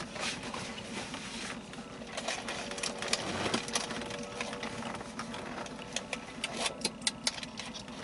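Sporadic small clicks and crackles of people eating chicken biscuits inside a closed truck cab, over a faint steady hum.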